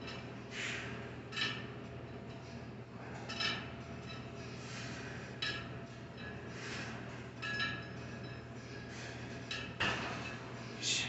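Lat pulldown reps on a rack attachment loaded to 80 pounds: metal weights clinking with each rep, about eight times, every second or two, over a steady low hum.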